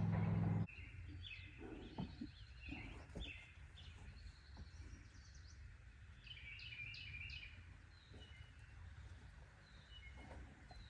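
Small birds chirping faintly and repeatedly over a low background rumble. A steady low hum cuts off abruptly under a second in.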